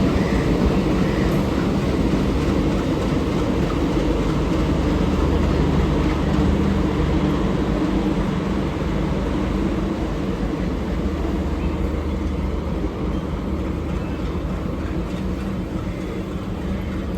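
Indian Railways train running on the track: a steady rumble with a low hum, slowly growing fainter.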